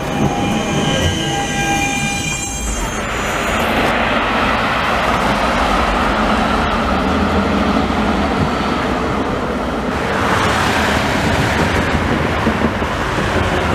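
Trams on street track. First an electric tram pulls away from a stop with a steady, multi-toned electric motor whine. After about three seconds the sound changes to the steady rumble and wheel noise of articulated trams passing.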